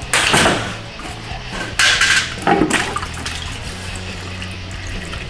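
Transmission fluid gushing and splashing out of a 6L80 automatic transmission into a drain pan as its oil pan comes off, in three surges, with a little metal clatter from the pan.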